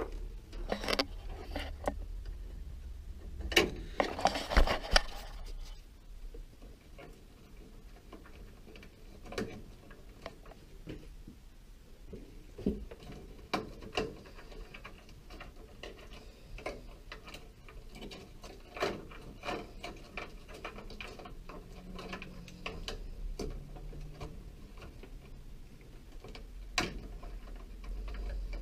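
Scattered light clicks and rattles of plastic and wire as a washer's wire harness is handled and pressed into plastic wire guides on the control unit. A denser run of clicks comes a few seconds in.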